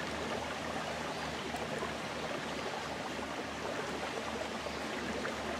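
A creek flowing, a steady even rush of water.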